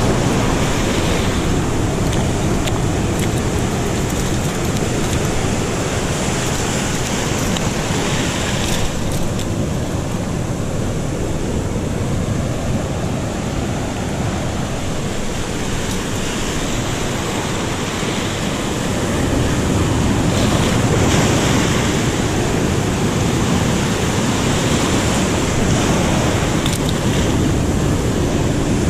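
Ocean surf breaking and washing around shoreline rocks: a steady rushing wash that swells and ebbs with the waves, with wind buffeting the microphone.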